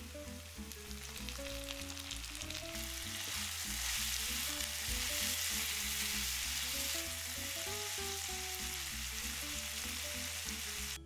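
Diced tomatoes, onions and peppers sizzling in oil in a hot frying pan while being stirred with a silicone spatula. The sizzle builds over the first few seconds after the tomatoes go in and eases a little in the last few seconds.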